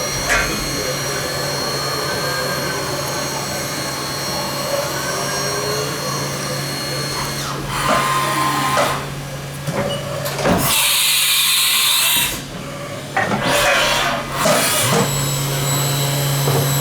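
Spindle of a 2006 Haas VF-3 CNC vertical machining centre running with a steady whine at 4,600 rpm. About halfway through the sound breaks up and changes, with a loud rushing noise for a couple of seconds, as the spindle is taken up to 8,400 rpm. It settles into a steady whine again near the end.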